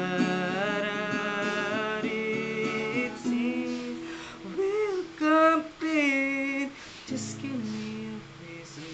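A man singing to his own acoustic guitar: long, wavering sung notes without clear words for the first few seconds and again around five seconds in, with the guitar going on alone near the end.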